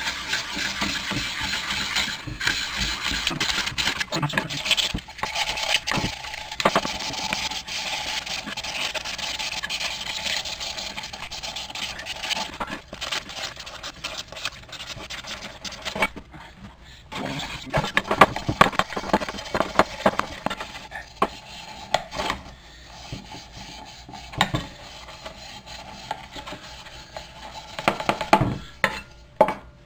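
An abrasive sanding pad rubbed by hand over a galvanised metal plant pot, scuffing the surface so paint will stick: a continuous scratchy scrubbing for the first dozen seconds, then shorter separate strokes with pauses between them.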